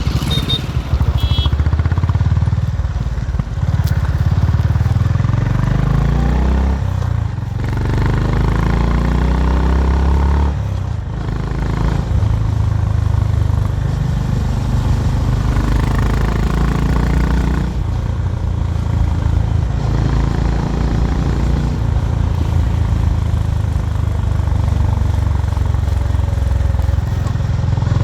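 Honda H'ness CB350's air-cooled single-cylinder engine and exhaust under way, pulling up in pitch through the gears with two brief drops at gear changes, then running at a steady cruise.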